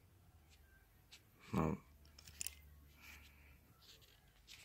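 Quiet room tone with a few faint clicks, broken once about a second and a half in by a short, low vocal sound from a person, a brief hum or breath lasting about a third of a second.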